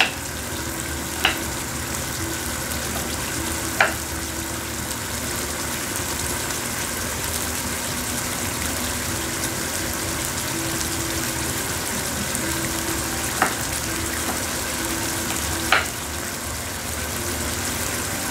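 Chicken thighs sizzling steadily in a frying pan over a propane burner on high heat. A few sharp knife taps on a wooden cutting board, as onions are cut, stand out over the frying.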